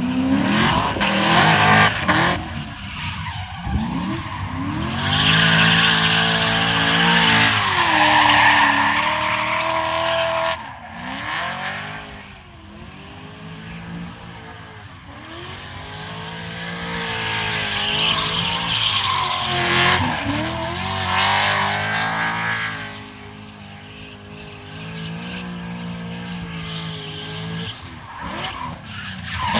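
GM LS3 6.2-litre V8 revved hard over and over, its pitch climbing and falling again and again, loudest around the first two seconds, from about five to nine seconds and from about seventeen to twenty-two seconds, with quieter stretches between. A hissing squeal of tyres rides over the loudest runs.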